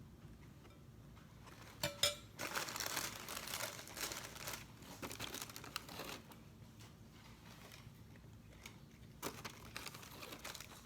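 Graham cracker packaging crinkling as it is handled, with a couple of sharp clicks about two seconds in and spells of rustling that come and go.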